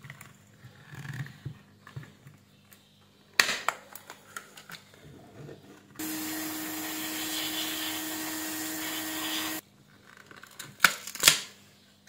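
Small plastic clicks and scrapes of a smartphone's back cover being pried loose by hand around its edge, with sharp snaps about three and a half seconds in and again near the end as the clips let go. In between, a steady hiss with a low hum starts abruptly about six seconds in and stops just as abruptly some three and a half seconds later.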